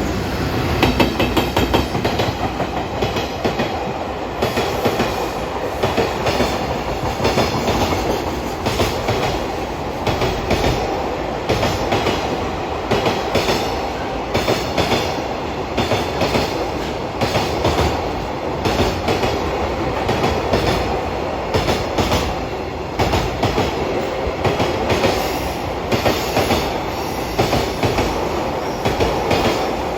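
Container freight wagons rolling past over rail joints: a steady clickety-clack as each wheel set strikes the joints, about two clacks a second, over a continuous wheel-on-rail rumble.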